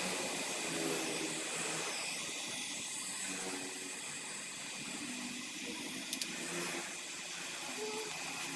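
Oxy-acetylene (carbide) gas welding torch flame hissing steadily as it heats aluminium in a small crucible. Two short clicks about six seconds in.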